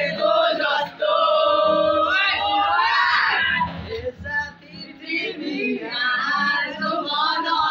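A group of boys singing together, several voices at once, holding long notes. The singing drops away about halfway through and then picks up again.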